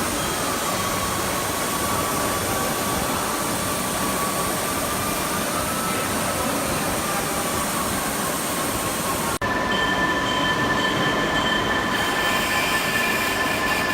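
CNC press brake machinery running: a steady mechanical noise with high whining tones that waver slightly in pitch. About nine seconds in, the sound breaks off abruptly for an instant, then resumes with the whine on different steady pitches.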